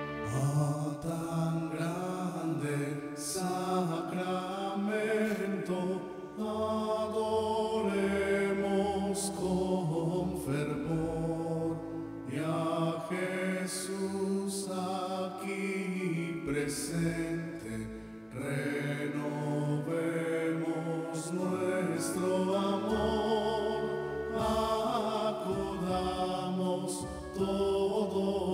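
Slow devotional chant: voices singing long, held phrases with musical accompaniment.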